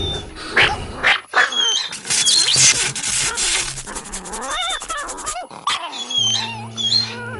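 A dog yelping and whining while a vibrating massage chair rattles rapidly under it, the rattle running through the middle. A steady low hum comes in near the end.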